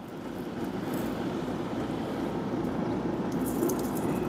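Steady rushing noise from a Pit Boss tabletop pellet grill running hot, with a few light clicks of metal tongs against the grate near the end.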